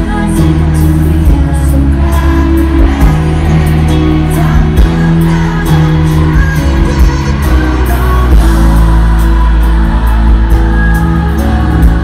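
Pop music performed live: a band with heavy bass and a steady drum beat, with voices singing over it.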